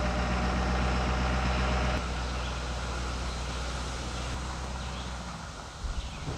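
Engine of a Ford F-450 pickup carrying a truck camper, running steadily as it drives off. It steps down in loudness about two seconds in, then fades away as the truck moves off.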